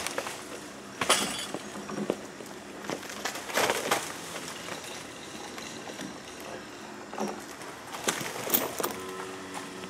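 Rotten pine trunk cracking and its roots tearing out of the ground as a winch chain pulls it over. There are sharp cracks about a second in, a louder cluster around four seconds, and more near eight seconds.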